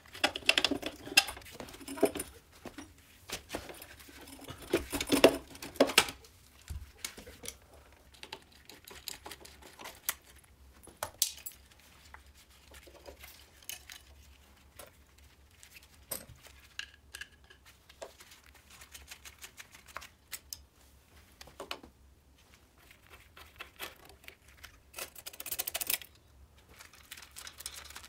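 Workshop handling noise from moped restoration: metal parts and hand tools clinking, tapping and rattling as parts are fitted. The clatter is busiest in the first six seconds and again around 25 seconds.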